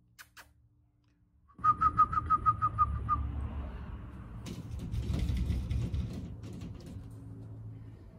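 A quick run of about nine short, high whistle-like chirps, evenly spaced at about six a second, over a low rumble; a few sharp clicks follow.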